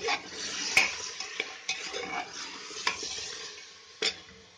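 Mutton sizzling as it is browned (bhuna) in oil with ginger-garlic paste in an aluminium pressure cooker, stirred with a metal slotted spoon that clinks sharply against the pot about once a second.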